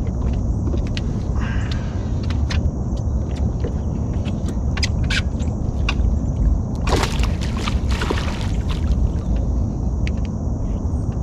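Water splashing for about a second and a half, about seven seconds in, as a hooked mudfish (bowfin) is scooped up in a landing net beside the boat. Under it, a steady low rumble with scattered light clicks and knocks.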